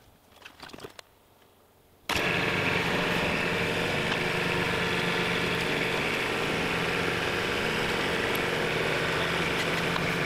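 Mahindra compact tractor's diesel engine running steadily, cutting in abruptly about two seconds in, while the front-loader hydraulics work against a ratchet strap to lift the bent loader back into place.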